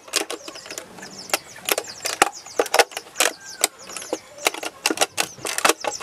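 Clear plastic jar handled and tapped as rice grains are dropped into it: irregular sharp clicks and knocks of grains and fingers on thin plastic. A fast series of faint high chirps runs in the background.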